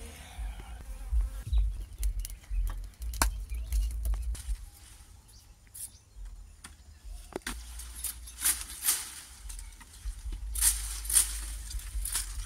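Machete slashing at palm fronds: a few sharp chops and several rustling swishes of leaves, most in the second half, over a low wind rumble on the microphone.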